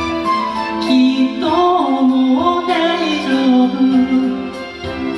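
A solo voice singing a slow ballad melody over piano accompaniment. Held piano notes come first, and the voice enters about a second and a half in with sustained, gliding notes.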